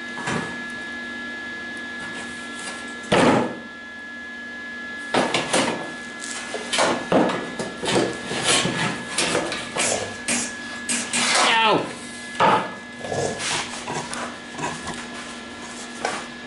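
MIG welder putting short tack welds along cracks in a thin sheet-steel MGB front valance, in brief bursts of the arc. The first comes about three seconds in, then a quick irregular run of them from about five to thirteen seconds in. A steady hum runs underneath.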